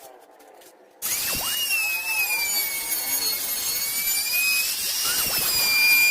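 A small high-speed power tool starts suddenly about a second in, then runs with a loud, steady, high-pitched whine that wavers slightly in pitch.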